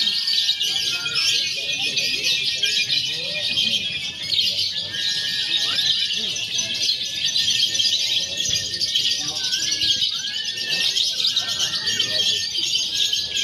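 Many lovebirds chirping and trilling at once in a dense, unbroken chorus of rapid high notes, with a murmur of people's voices underneath.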